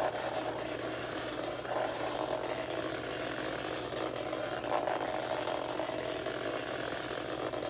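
Small battery-powered bug toy buzzing and rattling as it skitters around inside a washbasin, a steady mechanical buzz ringing off the basin's walls.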